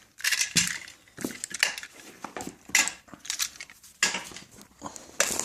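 A knife cutting open a cardboard shipping box, giving irregular scrapes, taps and clicks as the blade works along the tape.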